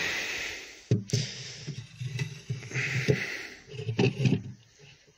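Wooden drying trays sliding into the wooden runners of a homemade solar dryer: wood scraping on wood, then a knock about a second in and a series of dull wooden bumps and knocks as the trays are pushed home.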